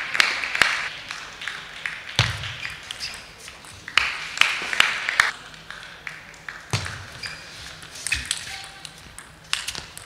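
Table tennis ball being struck back and forth in a rally: sharp clicks of the celluloid ball off the rackets and bouncing on the table, several in quick succession.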